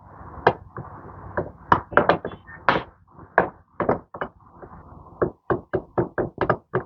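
Metal wrench tapped again and again across a battery's terminals, a quick series of sharp taps that come faster near the end. It draws no sparks, the sign that the battery is completely dead.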